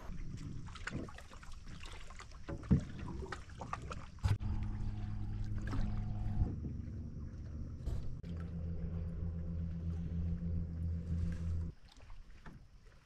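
Knocks and splashes from a paddled canoe, then a steady low boat-motor hum that starts about four seconds in and cuts off sharply near the end.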